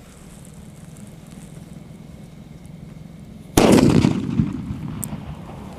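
Sutli bomb, a jute-twine-wrapped Indian firecracker, going off with a single loud bang about three and a half seconds in. A rumbling echo follows and fades over a couple of seconds.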